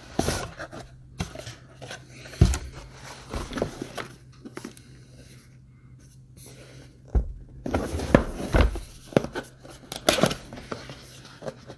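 Cardboard packaging of a Rode PodMic being handled: the microphone's box scraping and sliding against cardboard and being opened, with rustling and a few dull thumps as it is moved and set down.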